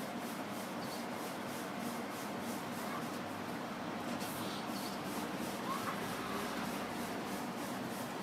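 Hands pressing and stretching a round of pizza dough on a stainless steel counter: a soft, steady rubbing over a constant low hum.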